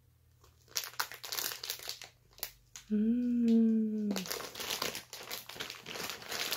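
Plastic sweet wrappers and packaging crinkling and rustling as they are handled, with a short hummed "mmm" about three seconds in.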